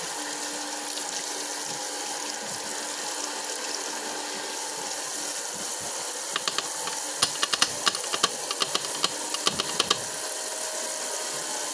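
Tap water running steadily into a sink while greasy lock parts are washed, with a run of sharp clicks about halfway through.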